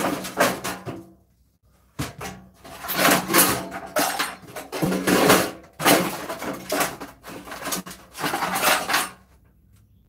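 Stripped metal microwave parts rattling and clattering as they are handled and sorted by hand, in a run of irregular bursts. There is a short pause about a second in, and the sound dies away near the end.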